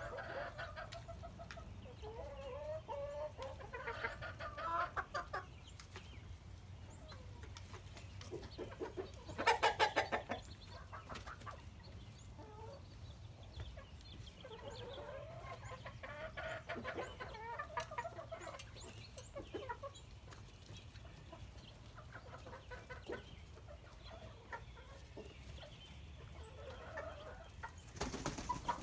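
A flock of chickens clucking and calling on and off, with a short, louder burst of rapid calls about a third of the way through.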